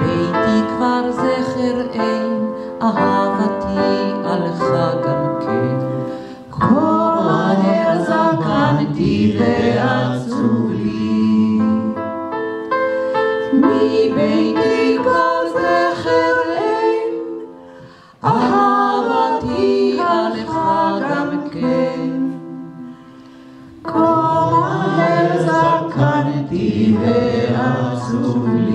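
A small vocal group sings a song with electric keyboard accompaniment. The music dips briefly about eighteen seconds in and is quieter for a moment a few seconds later.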